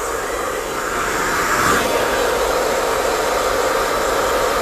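Hand-held hair dryer with a diffuser attachment running steadily, growing a little louder over the first second or two.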